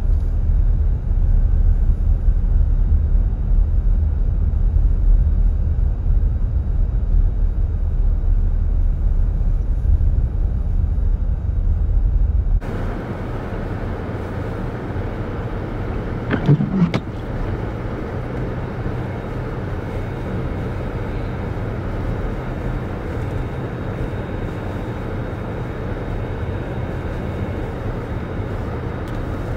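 Steady low rumble of a vehicle driving on a snow-covered highway. About halfway through it switches abruptly to a lighter, even road noise, with one short rising tone a few seconds later.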